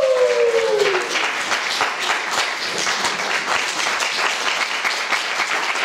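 Audience applauding with steady, dense clapping at the end of a song. Over the first second, one voice calls out in a drawn-out note that falls in pitch.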